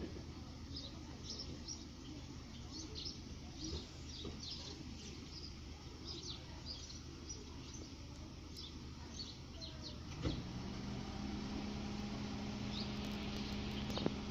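Small birds chirping in quick, short high calls over a low background rumble. About ten seconds in, a single knock is followed by a steady low hum that holds to the end.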